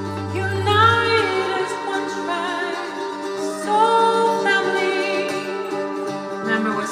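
Music with a singing voice over steady, held instrumental notes; the voice comes in about half a second in and again around the middle.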